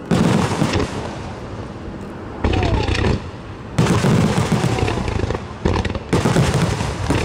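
Aerial fireworks shells bursting: about five loud booms a second or two apart, with dense crackling and rumble between them.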